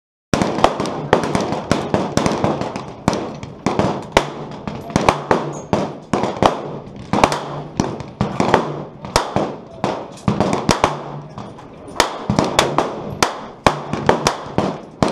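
Rifle shots from several shooters along a busy firing line: sharp cracks coming irregularly, often several a second, each trailing off in a short echo.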